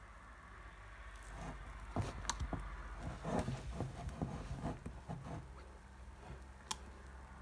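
Metal wire whisk stirring thick cake batter in a glass bowl: soft squelching with irregular taps of the whisk against the glass. The taps start about a second in, come thickest in the middle and stop a little after five seconds in.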